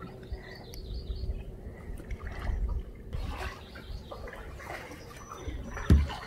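Lake water lapping and dripping around a kayak, with small splashes. One low thump near the end is the loudest sound.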